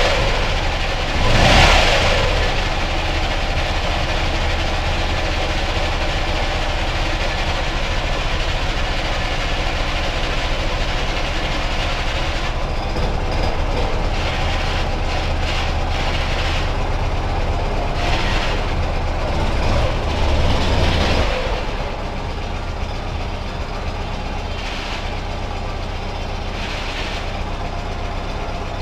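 Ural motorcycle's flat-twin engine and gearbox running, swelling briefly near the start and again about two-thirds through, then settling quieter. The freshly reassembled gearbox is noisy, which the owner takes for a mistake in his reassembly.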